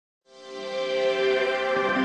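Intro music fading in from silence in the first second, with steady held notes.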